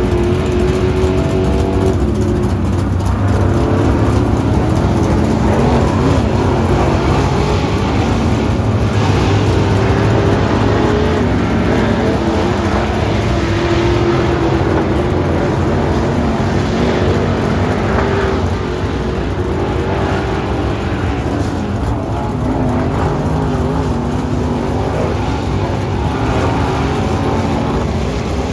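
Dirt late model race cars running hot laps on a dirt oval, their V8 engines rising and falling in pitch as they accelerate down the straights and lift for the turns.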